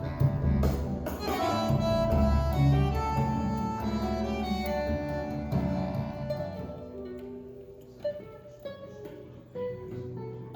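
Instrumental music with string instruments, played from a vinyl record over Fleetwood Deville loudspeakers. Fuller in the first half, it grows quieter about six seconds in, leaving sparser single notes.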